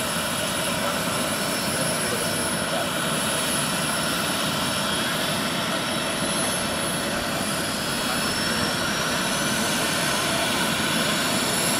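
Turbine engine of a giant-scale RC AH-64 Apache model helicopter running on the ground with the rotors turning: a steady high whine, with a second whine rising in pitch from about seven seconds in as the turbine speeds up.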